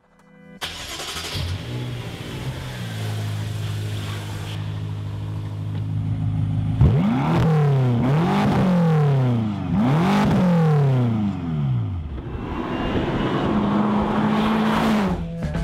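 BMW M5's twin-turbo V8 through its Dinan aftermarket exhaust: it starts and settles into an idle, then is revved in a series of quick throttle blips that rise and fall sharply. Near the end the car is driven under steady throttle.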